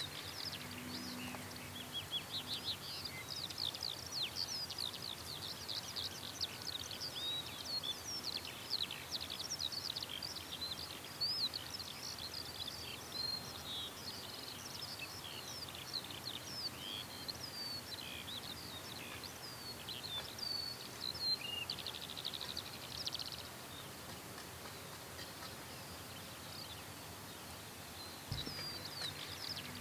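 Small birds chirping and singing over a steady outdoor background hiss, with a faint low hum near the start and end.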